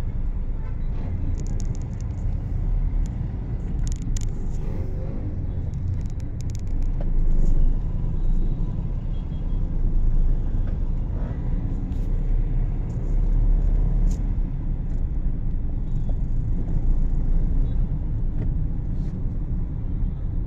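Steady low rumble of a car driving, heard from inside the cabin: engine and tyre noise, with scattered light clicks now and then.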